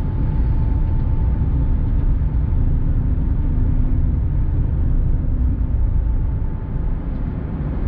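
Steady low engine and tyre rumble of a car driving at speed on a paved highway, heard from inside the cabin, with a faint steady whine over it.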